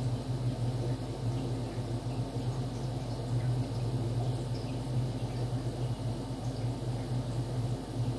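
Steady low machine hum with faint scattered small ticks and a faint high whine.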